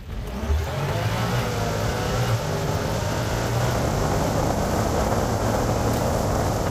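A buggy's engine running hard as it drives fast over a paddock, a steady hum under a rushing noise, picking up just after the start.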